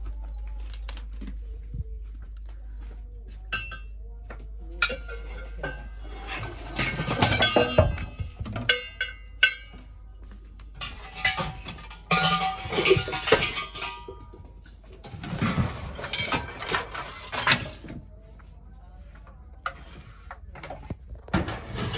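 Tins, plastic containers and scrap metal clattering and scraping as the junk is poked and shifted with a metal snake hook, in about four bouts of a few seconds each.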